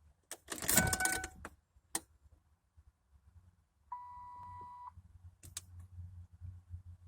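Clicks and a short rattle, then a single steady beep about a second long, typical of a car's dashboard warning chime.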